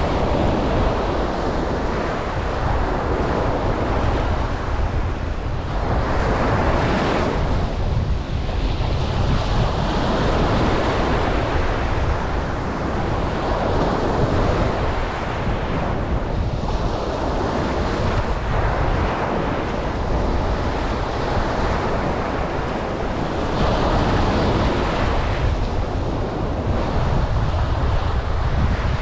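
Ocean surf breaking and washing on a beach, swelling and easing every few seconds over a steady low rumble.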